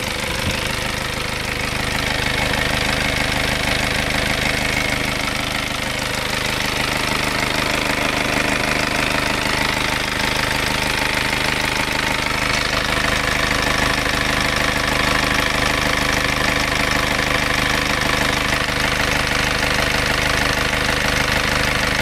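Turbo-diesel engine idling steadily, freshly rebuilt with new piston rings.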